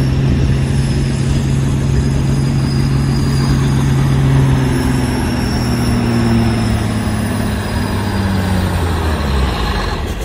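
Semi truck's diesel engine working hard under load as it pulls a weight-transfer sled, a steady engine note with a high whine over it, easing off near the end.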